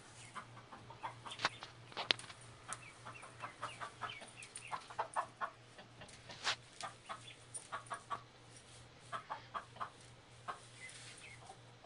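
Mother hen with chicks clucking in short, rapid runs, a guarding hen's low warning clucks, with a few higher peeps mixed in.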